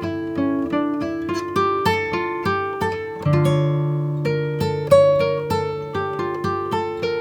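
Background music: acoustic guitar picking a melody of plucked notes over a held bass note.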